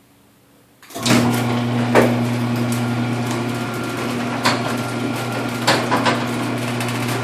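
Garage door opener motor starting about a second in and running with a steady hum, while the door clatters and knocks along its track as it opens.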